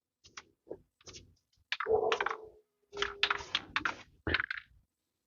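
An aerosol can of alternator paint sprayed in short hissing bursts, with scattered clicks from handling the can.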